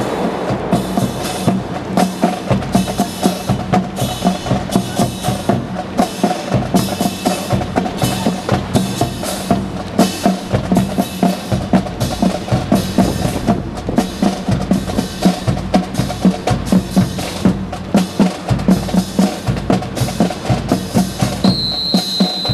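Rifle drill team marching in step on tarmac: a regular percussive beat of boots and rifle handling, about two strong knocks a second with lighter clicks between, over a steady hum. A short high steady tone sounds near the end.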